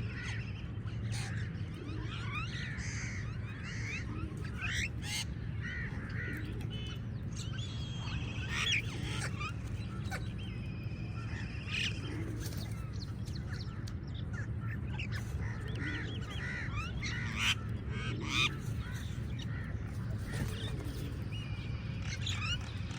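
A flock of crows calling, with many short harsh caws and calls overlapping throughout, over a steady low background hum.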